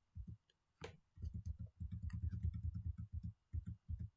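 Rapid runs of soft, dull clicks or ticks, several a second, with brief gaps between the runs and one sharper click about a second in.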